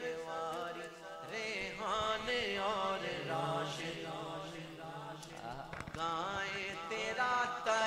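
Male voices singing a naat melody, drawing out long, ornamented notes that waver up and down, with a low held note underneath for a few seconds.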